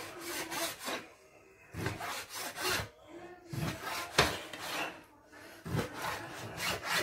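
Kitchen knife slicing raw veal liver on a plastic cutting board: short rasping strokes of the blade through the meat and against the board, one or two about every second.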